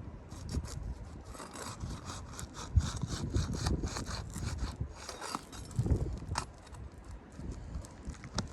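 An old asphalt roof shingle being worked loose during a repairability test: irregular scraping and crackling strokes, with a few dull knocks.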